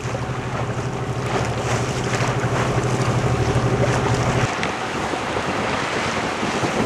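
A sailboat's inboard Yanmar diesel running steadily under wind buffeting the microphone and water washing past the hull; about four and a half seconds in the engine hum stops abruptly, leaving only wind and water.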